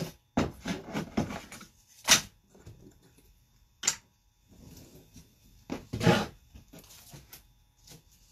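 Thin Baltic birch plywood knocking and clattering as scroll-sawn cutout pieces are pushed out of the panel by hand: a run of sharp wooden knocks, the loudest about two seconds and six seconds in, with lighter taps between.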